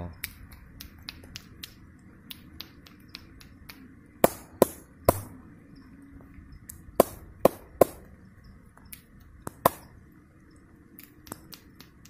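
Sharp clicks and taps close to the microphone, the loudest coming in two quick runs of three, with a single one later, over a faint steady background hiss.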